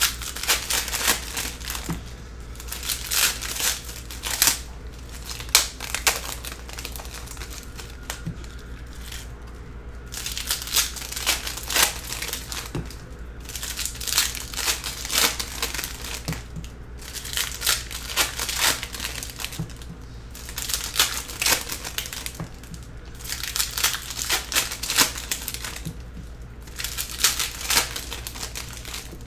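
Foil wrappers of 2021 Upper Deck Skybox Metal Universe Champions trading-card packs crinkling and tearing as packs are ripped open one after another. The crackling comes in spells with short lulls between them.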